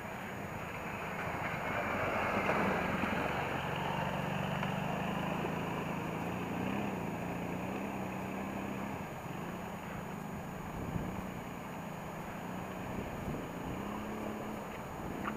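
Kawasaki Brute Force ATV engine running as the ATV ploughs through deep standing water on a flooded trail, with water splashing and rushing around it. The engine note wavers up and down as the throttle changes, and the splashing is loudest about two to three seconds in.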